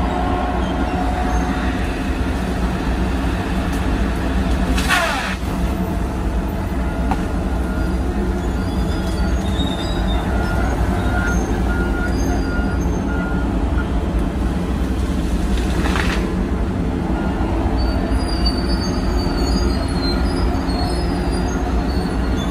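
Tigercat tracked feller buncher moving through the woods, its track undercarriage squealing and squeaking over the steady drone of diesel engines. Two brief rushing sounds come about five and sixteen seconds in.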